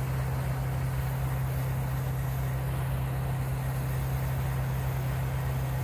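Hydrogen-fuel burner flame running steadily from a brass nozzle: an even rushing hiss with a strong steady low hum underneath.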